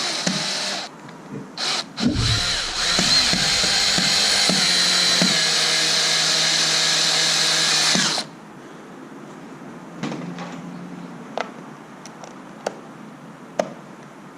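Drill/driver with a steady motor whine, driving a screw into the door lock plate: a short run, two quick trigger blips, then one continuous run of about six seconds that stops suddenly. A few light clicks follow.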